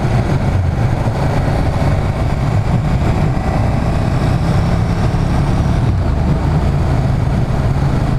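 Motorcycle engine running steadily at cruising speed, with an even rush of wind and road noise over it.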